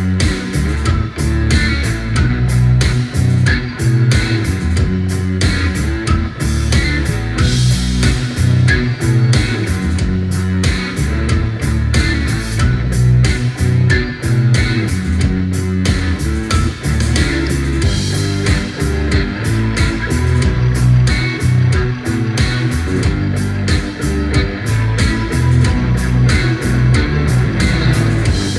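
Rock music with guitar and bass guitar over a steady beat.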